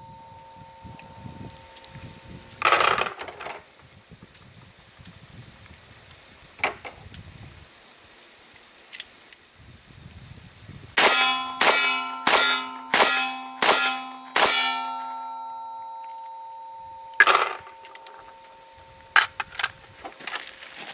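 Revolver fired double action six times in a steady string, about one shot every 0.7 s, each sharp report followed by a metallic ringing: the Federal small pistol primers firing every time. Separate sharp metallic clicks come before and after the string.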